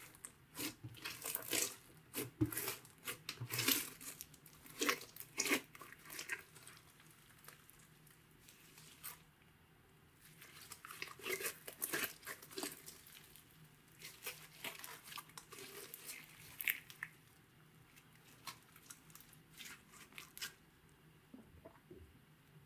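Green glitter slime with small beads mixed in, kneaded, squeezed and stretched by hand: irregular bursts of sticky crackling and clicking, with quieter stretches between.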